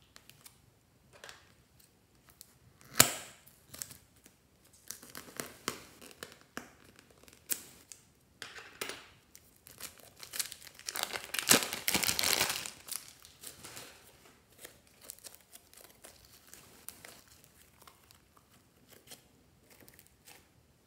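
A plastic piping bag filled with slime crinkles and rustles as it is handled and squeezed. There is a sharp snap of plastic about three seconds in, and a dense burst of crackling around the middle.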